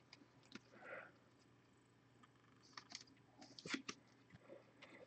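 Faint clicks and light rustles of trading cards being flipped one at a time through a hand-held stack, more of them in the second half.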